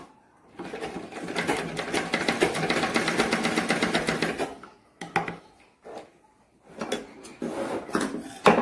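Domestic sewing machine stitching a seam at a steady speed, a rapid even clatter of the needle mechanism for about four seconds before it stops. A few short bursts of sound follow near the end.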